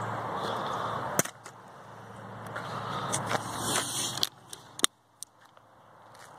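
Sharp knocks of a plastic water bottle landing on pavement after being flipped, the loudest about a second in and just before five seconds in. They sit over outdoor background hiss that drops away abruptly twice.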